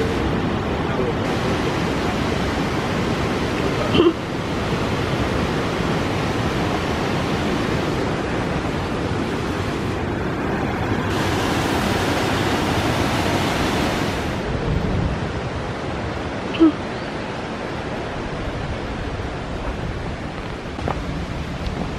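Steady rushing of the gorge's stream and waterfall, shifting in level several times, with two brief knocks, about four seconds in and again after about sixteen seconds.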